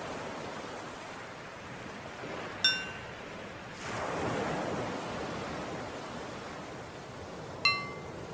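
Recorded ocean waves washing steadily, swelling about four seconds in, with a small bell struck twice about five seconds apart, the first strike higher-pitched than the second, each ringing out briefly. The bell is the cue to switch between inhaling and exhaling in a paced breathing exercise.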